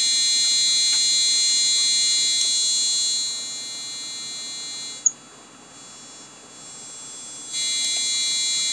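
Piezo buzzer driven by an Arduino sounding a steady high tone, rich in overtones, with its volume set by a 2K potentiometer in series. It is turned down about three seconds in and falls almost silent after a faint click around five seconds. Near the end it is turned back up.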